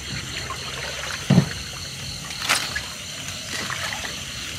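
Water trickling and dripping, with a short low thump about a second and a half in and a sharp knock about a second later.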